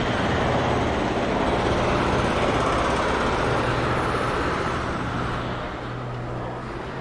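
Street traffic: a motor vehicle passes close by, its noise swelling and then easing off after about five seconds, over a steady low hum.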